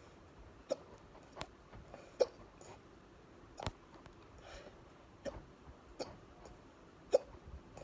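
A person hiccuping: about seven short, sharp hiccups at uneven intervals, roughly one a second.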